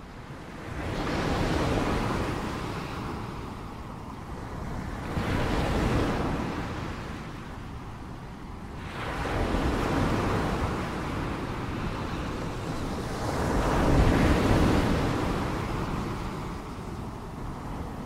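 Ocean waves: four waves break about four seconds apart, each swelling and then fading away; the last is the loudest.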